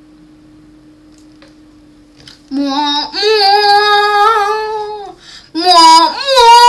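A young voice singing loud, long held notes in two phrases, with a short break just after five seconds, after a faint steady hum for the first two and a half seconds.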